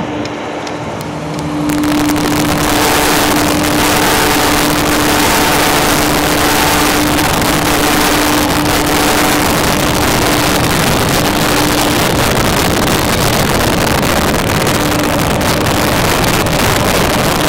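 Engine of site machinery running steadily, a constant hum under loud, even noise. It rises to full level about two seconds in.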